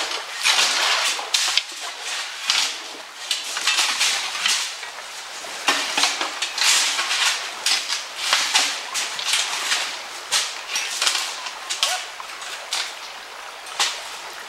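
Steel shovels digging into a pile of coarse gravel and tipping it into a steel bucket: an irregular run of crunching scrapes and stones clattering on metal.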